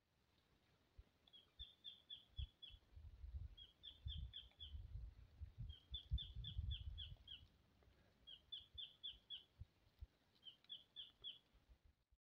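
A bird calling faintly in five short, repeated phrases, each a quick run of four to six high notes that each fall in pitch, the phrases a second or two apart. A low rumble sits beneath the calls for a few seconds in the middle.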